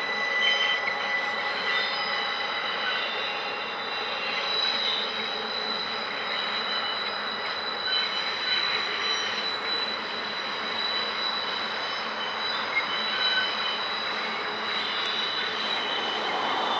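Canadian Pacific double-stack intermodal train led by a GE AC4400CW diesel locomotive, running steadily around a curve, with a steady high squeal of wheel flanges under the rolling cars. The sound grows louder near the end.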